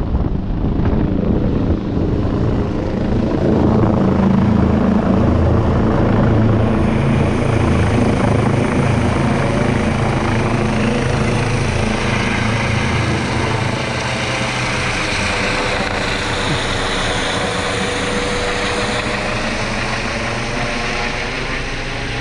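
Air ambulance helicopter flying low overhead and away, its rotor and turbine engines running steadily. The sound is loudest four to eight seconds in and eases off slowly toward the end.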